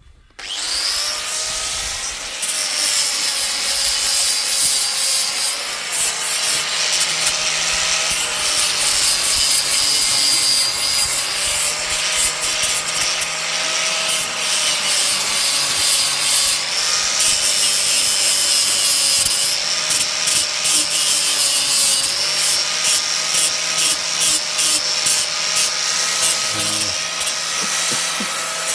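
Angle grinder fitted with a coarse 40-grit flap disc sanding and shaping a wooden ladle. It starts about a second in and runs steadily, its motor whine dipping and recovering as the disc bites into the wood.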